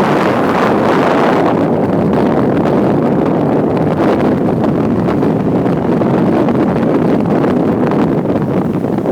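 Trail motorcycle engine running steadily, mixed with heavy wind buffeting the microphone.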